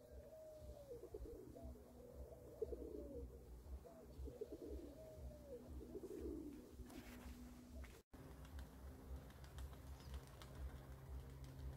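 Domestic pigeons cooing: about five rolling coos, one after another, that stop about two-thirds of the way through, leaving only faint low background noise.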